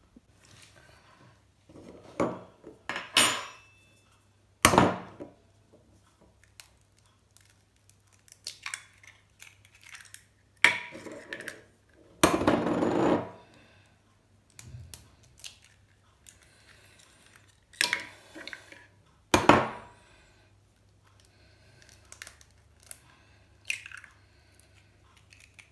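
Eggs being cracked into a ceramic bowl: sharp taps and knocks of shell on the bowl's rim, spaced several seconds apart, with shell crackling and the odd clink of crockery in between.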